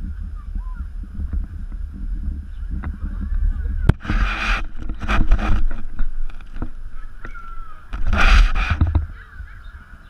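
Wind rumbling on a camera microphone set low on a mini-golf green, with a sharp putter tap on a ball about four seconds in. Twice, at about four and eight seconds, young people shout loudly.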